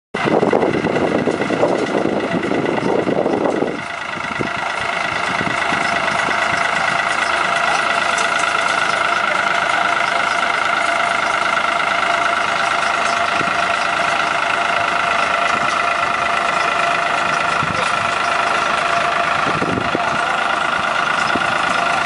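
Tractor engine running while it drives a Kartar 933 round straw baler baling paddy straw, the baler's mechanism adding a steady whine of several tones. About four seconds in a louder, rougher rumble drops away and the sound settles to an even machine drone.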